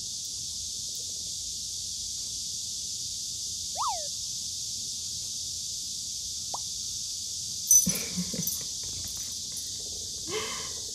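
Steady hiss with a few faint sounds: a brief high squeak that slides up and back down about four seconds in, then a click followed by a second of light clicking and rustling about eight seconds in as a rubber ball toy is handled and set on a dog's head.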